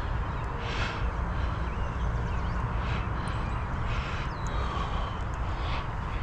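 Wind rumbling on the microphone, with short bird calls and a few thin chirps every second or so.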